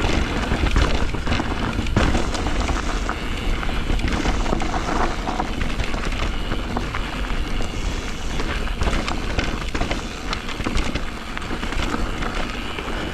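Simplon Rapcon Pmax Pinion e-mountain bike descending a rooty trail: wind buffeting the microphone over the rumble of tyres on dirt, with frequent quick knocks as the wheels hit roots and stones. The bike itself hardly rattles.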